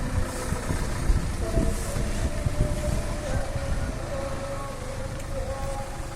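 An old truck's engine running, a low uneven rumble with a steady whine over it.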